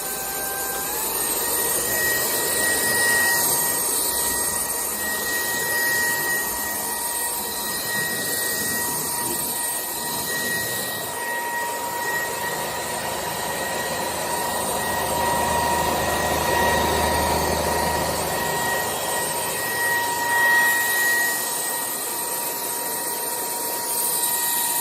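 Cordless stick vacuum running, a steady high whine over rushing air; the whine steps up in pitch about a second in, then holds steady while the loudness rises and falls a little.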